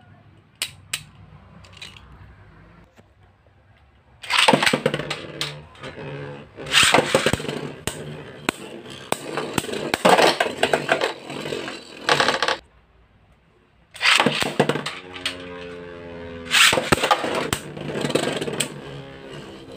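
Two Beyblade Burst spinning tops, one of them Blaze Ragnarok, launched into a plastic stadium, spinning and clashing with a loud rattling scrape that starts about four seconds in. The battle stops for a moment about twelve and a half seconds in, and about a second later the tops are launched again and clatter on to the end.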